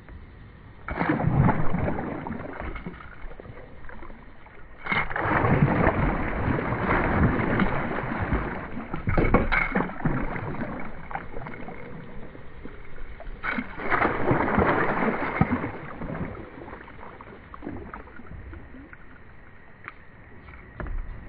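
A hooked northern snakehead thrashing and splashing at the water's surface right beside a kayak. It comes in three bouts: a short one about a second in, a long one from about five to ten seconds, and another around fourteen seconds. Quieter lapping water fills the gaps.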